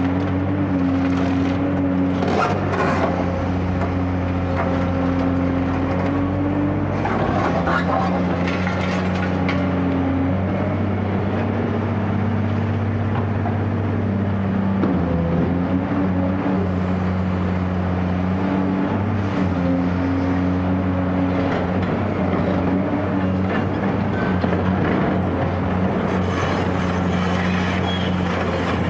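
Caterpillar 385C excavator's diesel engine running steadily under working load, its pitch dipping and rising a few times as the hydraulics work. Clattering knocks come a couple of seconds in and again around eight to ten seconds.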